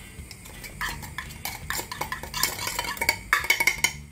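A metal utensil clinking and scraping quickly and repeatedly against a tuna tin and a ceramic bowl as canned tuna is emptied out and flaked, the strokes growing denser and louder in the second half.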